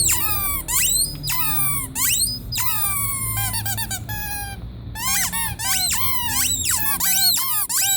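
Rubber squeaky toy squeezed over and over, each squeeze a high squeak. The early squeaks drop in pitch; from about five seconds in they come faster and rise then fall.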